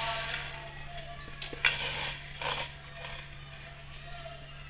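Soft background music, with two brief rustling rushes about one and a half and two and a half seconds in as handfuls of dry roasted vermicelli drop into a pot of liquid.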